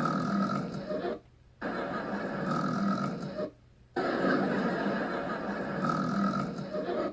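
A young woman snoring loudly. The long, noisy snoring breaths repeat, broken by short silent gaps.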